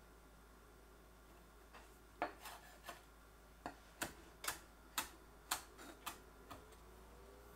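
Knife striking a cutting board in a series of about a dozen sharp, irregular chops, roughly two a second, starting about two seconds in: herbs such as cilantro being roughly chopped by hand.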